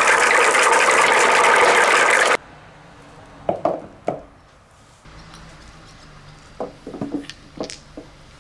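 A loud, dense rattle of many marbles pouring and rolling together, which cuts off abruptly a little over two seconds in. After it come single marbles clicking against wooden slopes, about eight sharp clicks in small clusters.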